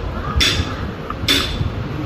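Metal lathe running with a low rumble and a short hissing scrape about once a second.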